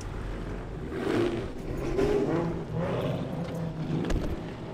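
Car engines running as cars pull away across a parking lot, with louder swells as they accelerate about one and two seconds in.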